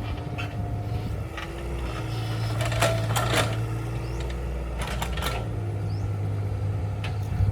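Kubota excavator's diesel engine running steadily, with a low hum and a faint tone that shifts slightly in pitch, and several sharp knocks and clanks around the middle.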